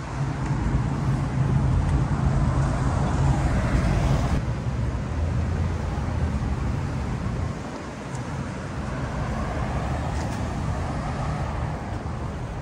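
Downtown street traffic: vehicles passing over a low rumble, loudest in the first few seconds, easing off about halfway and swelling again more softly later.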